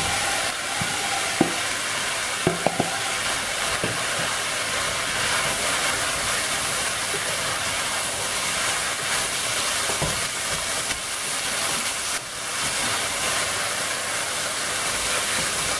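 Onions, garlic and bacon frying in olive oil in a stainless steel pot, sizzling steadily as diced kohlrabi is tipped in and stirred with a wooden spoon. A few sharp knocks in the first four seconds.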